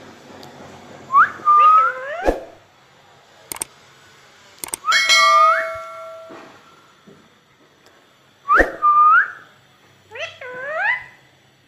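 Indian ringneck parakeet giving short, rising whistled calls in four bursts, with a few sharp clicks in between.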